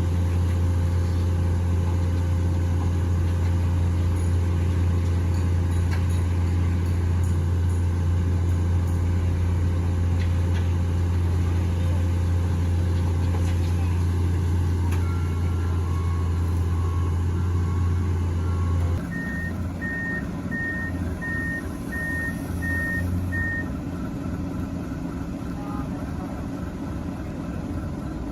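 Heavy diesel machinery running with a deep, steady engine drone that drops off suddenly about two-thirds of the way through. A backup alarm then beeps about six times, evenly spaced, each beep high and short.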